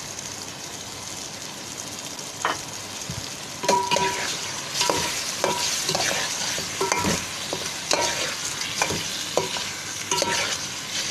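Chicken curry and onion-tomato masala sizzling in oil in a metal pot. From about three and a half seconds in, a slotted metal spoon stirs it, scraping and clanking against the pot again and again, each knock leaving a brief ringing tone.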